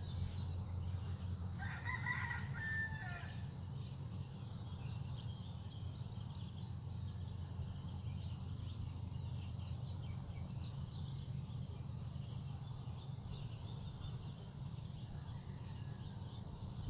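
A rooster crows once, about two seconds in, over a steady high-pitched insect drone and a low rumble.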